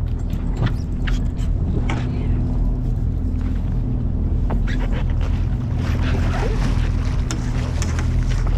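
A charter fishing boat's engine running with a steady low hum, with scattered short clicks and knocks over it.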